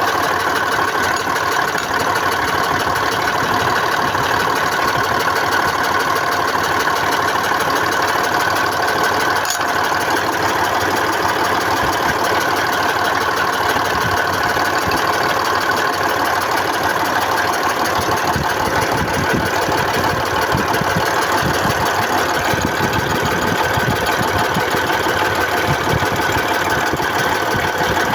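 YaMZ-236 V6 diesel engine idling steadily with a persistent, unexplained knock, which the owner suspects comes from an injector. The low knocking stands out more in the second half.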